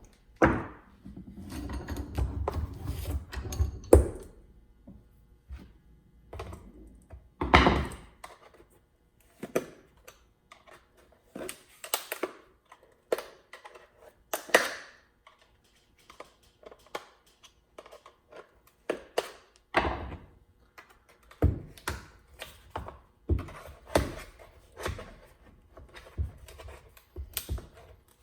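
Irregular knocks, taps and scrapes of a screwdriver prying at the crushed edge of a cut-open John Deere 2510 oil filter canister, working the filter element loose.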